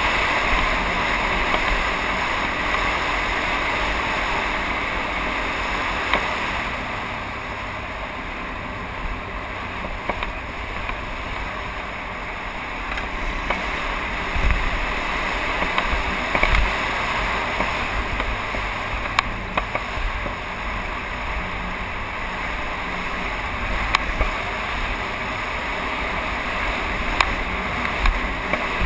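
Trail bike running as it is ridden over a dirt forest track, heard as a steady noisy rush with wind on the microphone. A few sharp knocks come from the bike going over bumps.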